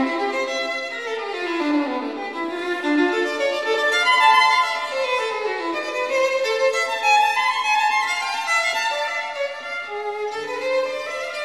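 Background music led by a violin playing a flowing melody.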